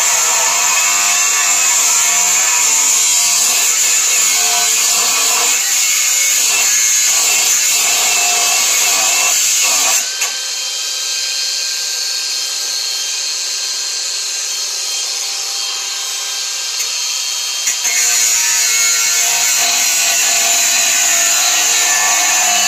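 Ingco angle grinder with a cutting disc cutting through steel, throwing sparks. The cut runs steadily, eases into a quieter, thinner stretch for several seconds midway, then bites in again.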